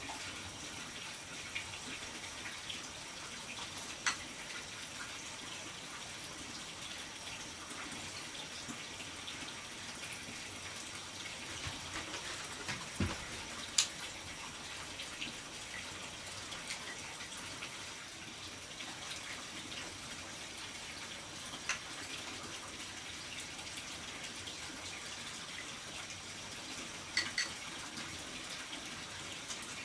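Steady trickle of running water, with a few sharp clicks or knocks scattered through it.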